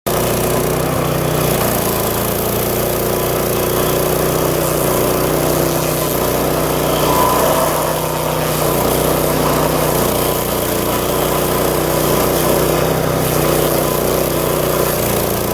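Power King PK0803 stump grinder's gasoline engine running at a steady speed, its cutter wheel grinding into an oak stump.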